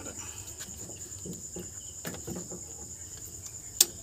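Crickets trilling steadily, with faint scattered clicks and one sharp click near the end as pliers work on a battery terminal.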